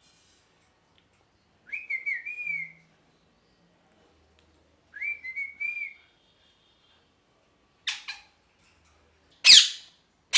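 Parrot whistling two short warbling phrases a few seconds apart, then giving a brief call and a loud, harsh screech near the end.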